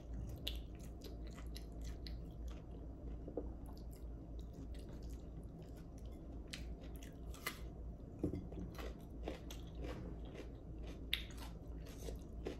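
A person chewing a mouthful of raw cucumber and rice, with scattered crisp crunches and wet mouth clicks.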